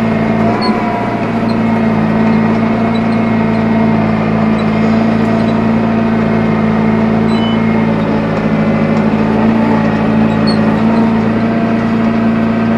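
Tractor engine running at a steady speed with a constant hum, heard from inside the cab while it pulls a rotary rake.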